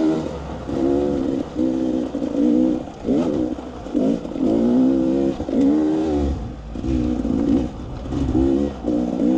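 Dirt bike engine revving up and down in short throttle bursts, roughly one a second, pitch rising and falling with each burst, over a low rumble.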